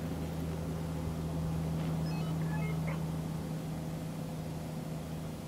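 A steady low mechanical hum, with a short run of brief high notes at changing pitches about two to three seconds in.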